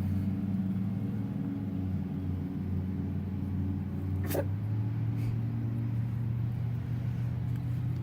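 A steady low machine hum, its pitch stepping up slightly about halfway through, with one short, sharp puppy sound about four seconds in.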